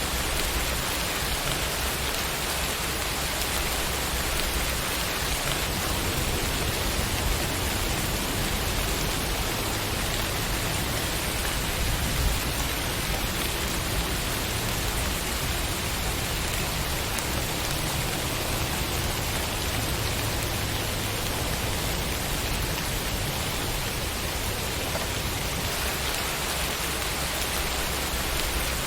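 Steady rainfall, a dense even patter of raindrops hitting a surface.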